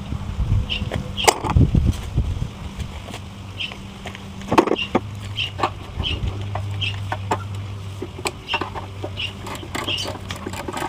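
Scattered metal knocks and clicks of tools and engine parts being handled while a small engine is taken apart, over a steady low hum, with short high chirps repeating through the background.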